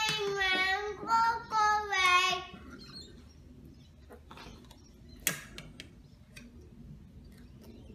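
A toddler singing a few drawn-out, high-pitched notes, followed by a short squeal and some faint clicks.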